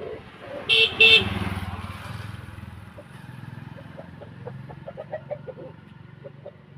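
Two short beeps in quick succession, then a motor vehicle's engine running and fading away.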